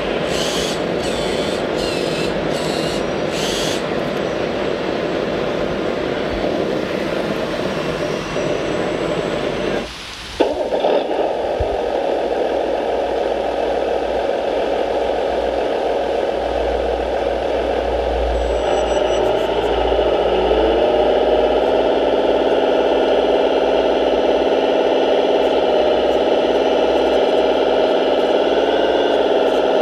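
Radio-controlled model machinery running with a steady mechanical noise, with about two ticks a second over the first few seconds. After a brief drop about ten seconds in, a motor's hum rises in pitch and then holds steady.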